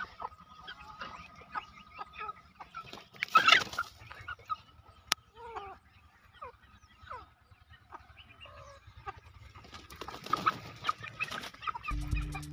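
Chickens clucking with many short calls, and a brief rustling scuffle about three seconds in and again near the end. Music starts just before the end.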